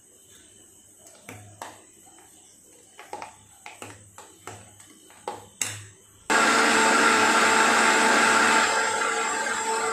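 Spoon clinking and scraping in a stainless steel mixer-grinder jar, then about six seconds in an electric mixer grinder starts and runs steadily with a whine, blending mango pulp, ice cream, milk and ice.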